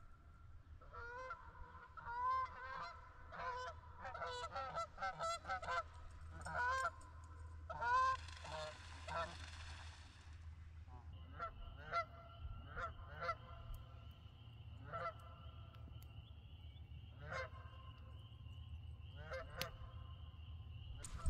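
Geese honking, a quick volley of calls at first, then sparser ones. About eight seconds in, a rushing splash of about two seconds as a goose lands on the water, and a thin steady high tone runs underneath in the second half.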